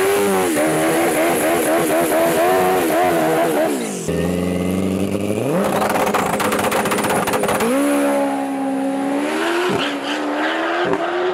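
Turbocharged second-generation Suzuki Hayabusa drag bike revving hard at the line with its pitch wavering up and down, then launching and pulling up through air-shifted gears, the pitch rising again after each change.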